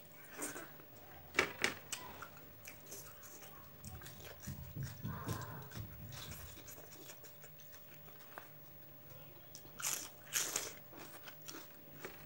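Close-up eating sounds: a person chewing rice and curry eaten by hand, with wet mouth smacks and crunchy bites. The sharpest smacks come about a second and a half in and again near the end.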